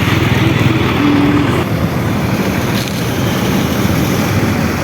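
Large vehicle's engine running steadily at the roadside, a continuous low rumble with traffic noise.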